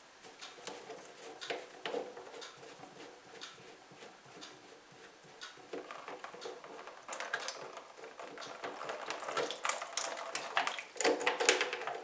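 Hands unscrewing the plastic slip nuts on a white plastic sink P-trap: intermittent scraping and clicking of plastic on plastic, getting busier in the last few seconds.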